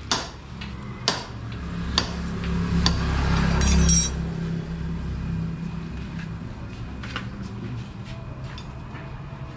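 Metal tools clinking against each other four times in the first three seconds, as hand tools are handled. Under them a low engine rumble builds, is loudest about four seconds in, then settles to a steady hum.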